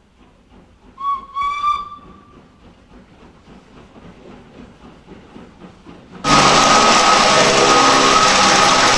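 A steam-train whistle blows about a second in, slightly rising, with a short break, over a faint rhythmic background. About six seconds in, a loud steady rushing noise with a hum cuts in abruptly.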